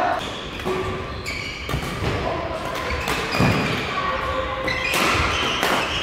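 Badminton being played in a large hall: several sharp racket-on-shuttlecock hits and thuds, the loudest about halfway through, with short high squeaks of shoes on the court floor between them.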